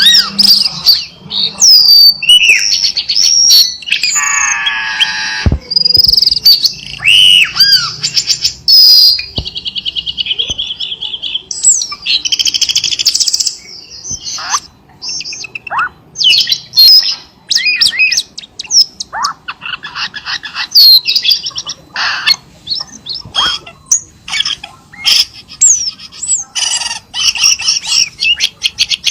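Cucak keling singing: a fast, varied, almost unbroken run of chirps, whistled up-and-down glides, buzzy trills and squeaks.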